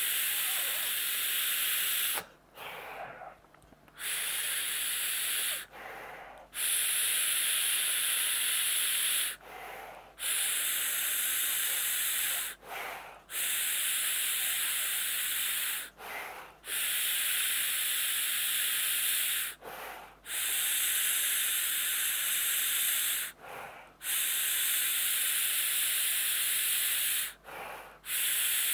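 Air hissing through a Blaze Bridge rebuildable vape tank on long direct-lung draws. There are about eight in a row, each two to three seconds long with short breaks between, as in chain vaping. The wicking keeps up with no dry hit.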